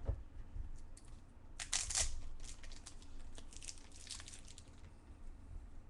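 A trading card pack wrapper being torn open with a sharp rip, followed by crinkling and small clicks as the wrapper and cards are handled.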